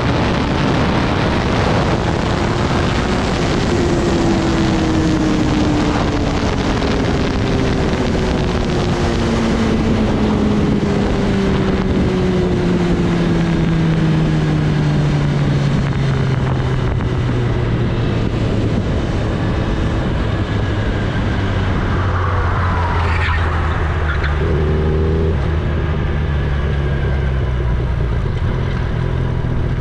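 Kawasaki Ninja ZX-10R's inline-four engine heard from the rider's seat, its note falling steadily over many seconds as the bike slows, under heavy wind rush on the microphone. Near the end the wind eases and the engine settles into a low, steady note.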